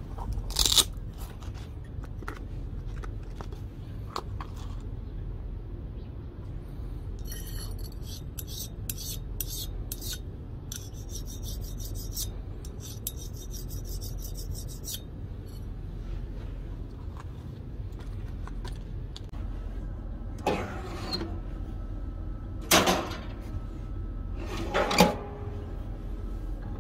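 Hardness tester files drawn across the edge of a freshly quenched steel knife blade in a run of short scraping strokes, checking how hard the blade came out of the quench. A sharp click comes about a second in, and three loud metallic knocks come near the end.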